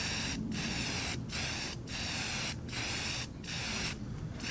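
Aerosol spray paint can hissing in a run of short bursts, broken by brief pauses about every 0.7 seconds as the paint is laid along a strip.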